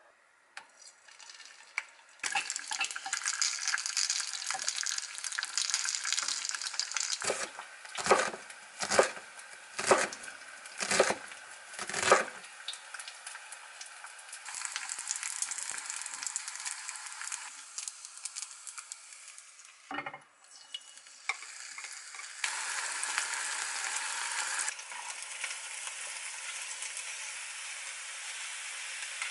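Dumpling wrappers frying in hot oil in a pan, a steady sizzle. Midway, about six sharp knocks of a knife chopping onion on a wooden cutting board; later the sizzling comes back, louder for a couple of seconds as chopped onion and dumpling filling go into the pan and are stir-fried.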